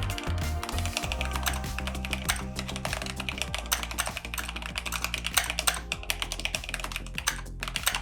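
Typing on a Glorious GMMK Pro custom mechanical keyboard: a fast, continuous run of keystrokes, over background music.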